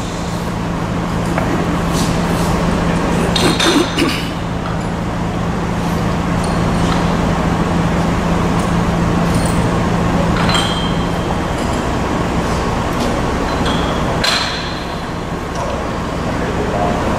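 Sheet-metal folding machine running with a steady hum whose low tone drops away about two-thirds of the way through, while metal sheet parts clink and clank as they are handled and positioned on the machine's table, several sharp clinks coming a few seconds in and again past the middle.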